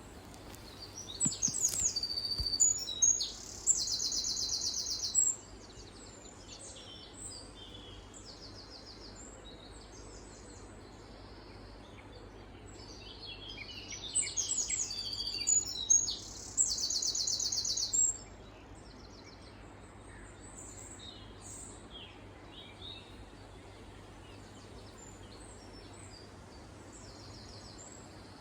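Wren singing: two loud, high-pitched bursts of song, one about a second in and one about halfway through, each a few seconds of rapid notes ending in a fast trill. Faint chirps sound between them.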